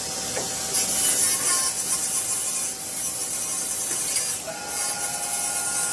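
Rasping, scraping noise that swells in two louder stretches, with a faint steady tone underneath.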